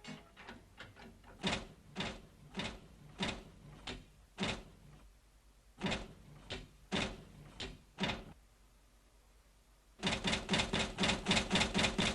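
Cartoon sound effects: a series of sharp knocks, about two a second, then a pause, then a faster rattle of clicks near the end.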